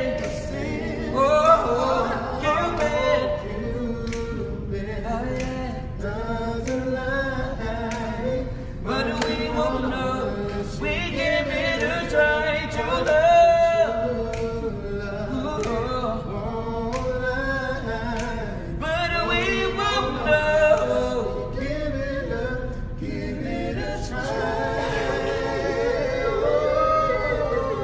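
Male R&B vocal quartet singing a cappella in close harmony, with no instruments, a lead voice rising over the others' backing.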